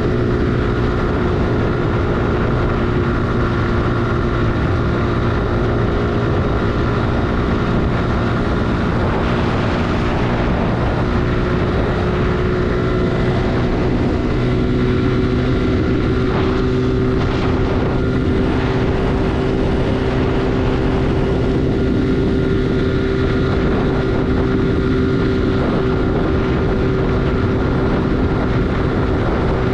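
Suzuki Gixxer 155's single-cylinder engine running steadily at cruising speed, with a constant pitch, and wind rushing past the microphone.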